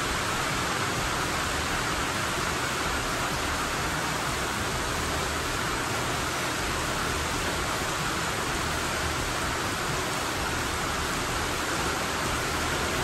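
Heavy rain falling steadily, heard from inside the workshop as an even hiss.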